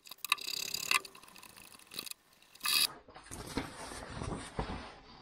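Light metallic clicks and scrapes as a bit is changed in a drill press chuck, then the crackle of a sheet of paper being handled for the second half.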